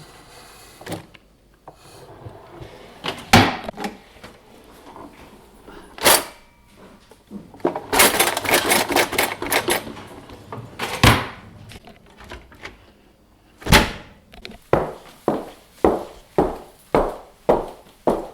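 A string of separate knocks and thuds, a dense clattering rattle for about two seconds in the middle, then a steady run of knocks about two a second near the end.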